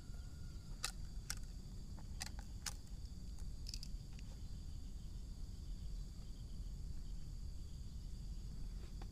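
Outdoor ambience: insects keep up a steady high drone over a low rumble, with a handful of short sharp clicks in the first four seconds.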